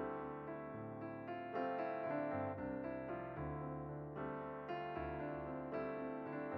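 Background piano music: notes and chords played one after another at a gentle, even pace.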